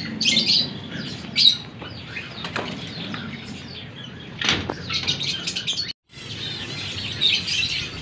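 Cockatiels and doves in an aviary chirping with short high calls, with wings fluttering as birds move about the perches. The sound cuts out for an instant about six seconds in.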